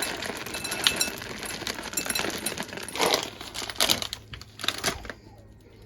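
Plastic bag of chocolate chips crinkling as chips are shaken out, with scattered light clicks, thinning out and going quieter in the last second or so.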